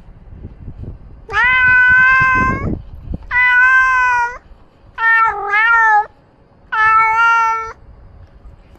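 Domestic cat meowing four times in a row, loud and close to the microphone, each meow about a second long and fairly steady in pitch; the third dips in the middle.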